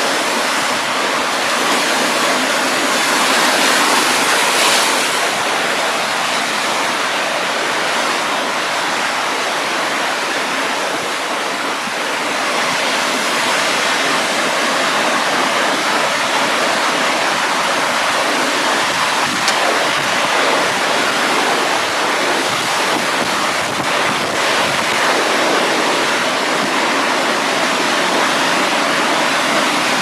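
Heavy storm surf breaking continuously: a loud, steady rush of crashing waves with no let-up.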